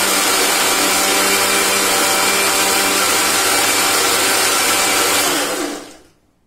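Preethi mixer grinder's motor running at full speed, grinding a thick ridge gourd chutney in its steel jar. It is switched off about five and a half seconds in and winds down to a stop.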